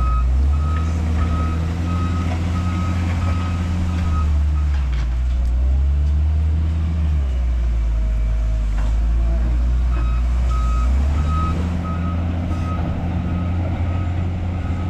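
The diesel engine of a W130 wheel loader working, its pitch rising and falling several times as it is revved. Its reverse alarm beeps about twice a second for the first few seconds, stops, and starts again about two-thirds of the way through.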